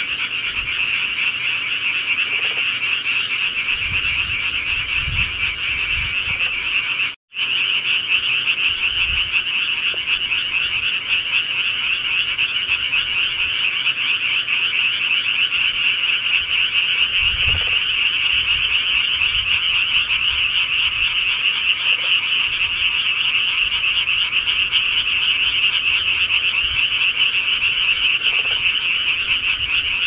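A dense chorus of many frogs calling at once, a steady high-pitched mass of croaks with no break except for a split-second dropout about seven seconds in.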